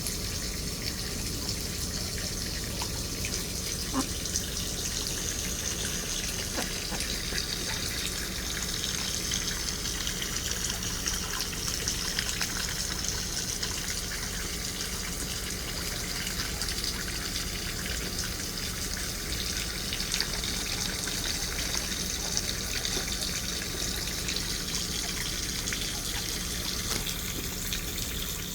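Steady running water, a continuous stream trickling and splashing, with a few faint clicks.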